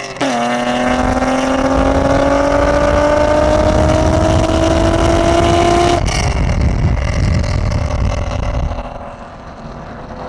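A car engine accelerating hard. Its pitch drops at an upshift right at the start, then climbs steadily for about six seconds. The sound changes abruptly to a lower, rougher rumble, which dies down somewhat near the end.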